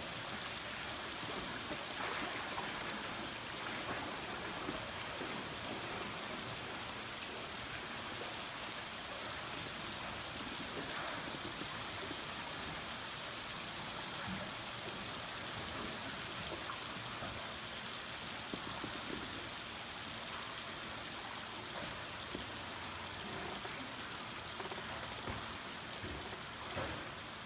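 Steady rain shower pattering on the lake surface, a dense even hiss with many small drop ticks.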